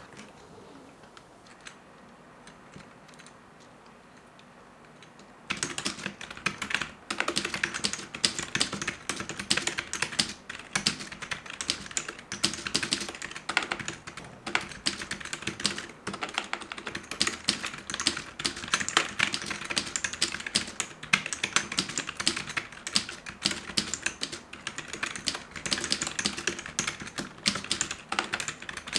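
Fast, continuous typing on a freshly cleaned and reassembled membrane keyboard, starting about five seconds in after a quiet pause. The keys are working again.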